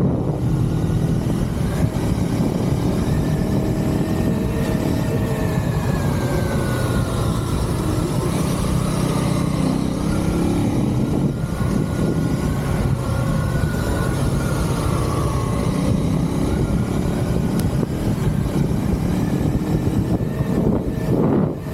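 KTM Duke 390 third-generation single-cylinder engine through its stock exhaust, running steadily under way, its note drifting gently up and down with the throttle.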